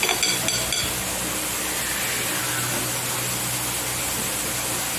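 Steady sizzling hiss of food cooking on the stove, with a few light clinks against a bowl in the first second.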